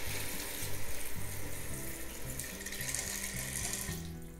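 Beef broth poured from a measuring cup into a Ninja Foodi's inner pot over dry elbow pasta: a steady splashing pour that tails off near the end as the cup empties.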